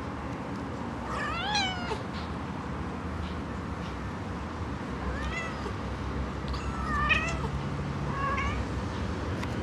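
Half-Siamese, half-Himalayan kitten meowing: four short, high-pitched meows, the first about a second in and three more in the second half.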